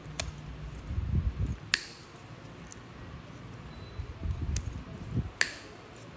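Steel nail nippers cutting a thickened, fungus-infected toenail: several sharp snaps as the jaws close through the nail, with low crunching and handling noise between the cuts.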